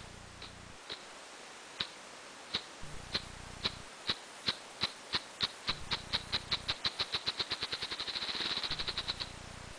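Male ruffed grouse drumming on a log: slow, separate wing-beat thumps that speed up steadily and run together into a rapid whir, stopping suddenly about nine seconds in.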